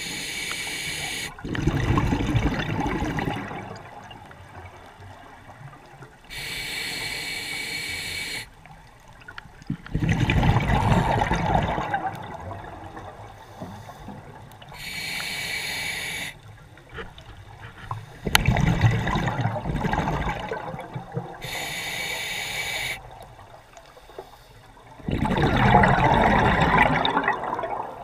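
Scuba diver breathing through a regulator underwater: four breaths about seven seconds apart, each a hiss of inhaling followed by a loud bubbling burst of exhaled air.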